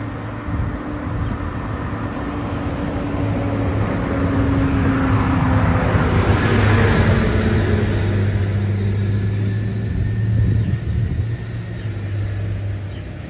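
Motor vehicle sound: a steady low engine hum, with the noise of a vehicle driving past swelling to a peak about halfway through and fading away.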